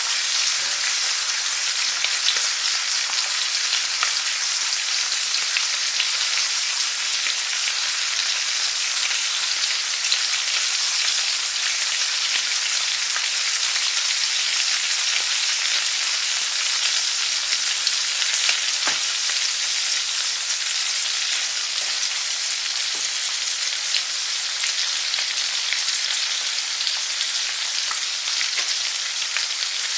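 Food frying in a pan: a steady sizzling hiss with scattered small crackles and pops.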